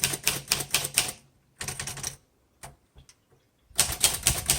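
Keys of a 1936 Royal Model O portable manual typewriter being typed in quick runs of about six strokes a second. Typing breaks off for about a second and a half partway through, with a stray click or two, then resumes.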